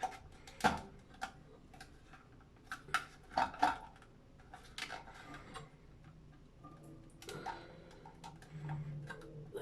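Irregular clicks and taps of hard plastic as toilet fill-valve parts and the refill tube are handled and fitted, a cluster in the first half and a few more later.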